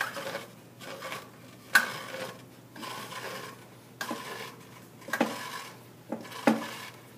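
A CVT clutch being turned by hand to work a drive belt back up into its sheaves: scattered clicks and knocks of metal parts with rubbing between them, the sharpest knock about two seconds in.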